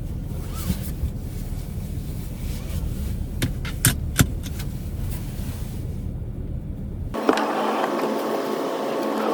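Steady low vehicle rumble with a few sharp clicks in the middle, then an abrupt switch about seven seconds in to a higher hiss with a faint steady hum.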